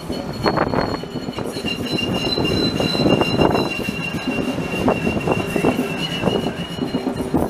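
Alstom Citadis tram passing close by on curved track: a rolling rumble of wheels on rail with a steady, high-pitched squeal from the wheels held throughout.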